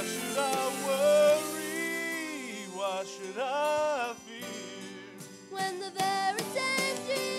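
A girl and a man singing a gospel song into handheld microphones, with instrumental accompaniment underneath.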